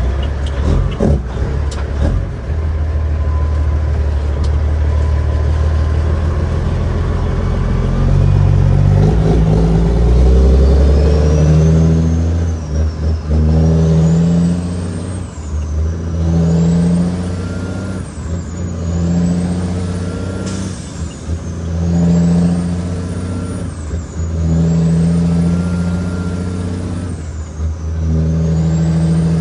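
Caterpillar 6NZ inline-six diesel in a Kenworth W900L hauling a heavy load, running steadily at first. From about ten seconds in, the engine note swells and dips in a regular cycle about every two and a half seconds, while a high whistle rises and falls along with it.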